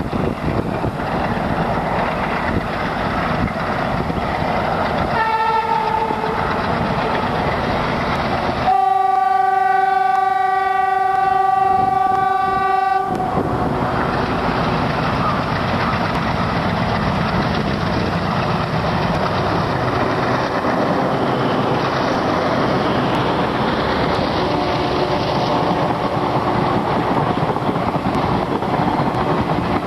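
Twin ALCO-type Indian Railways diesel locomotives, a WDM3D and a WDG3A, running with a train, with steady engine and wheel-on-rail clatter throughout. A short horn blast comes about five seconds in, then a long blast of their 'elephant style' horn lasting about four seconds.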